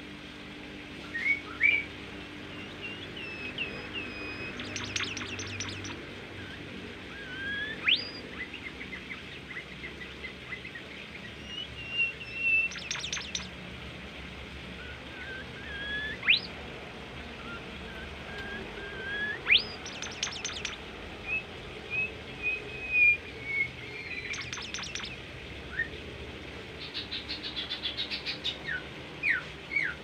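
A caged bimoli songbird singing: clear whistled notes and several sharp upward-sweeping whistles, broken up by short, fast rattling trills that come back five or six times.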